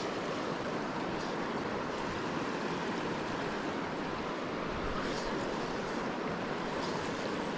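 River water flowing, a steady even noise with no break.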